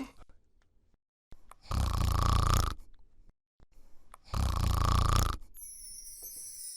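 A person snoring: two loud snores about two and a half seconds apart, each lasting about a second, with faint breathy sounds between. A high swish comes in near the end.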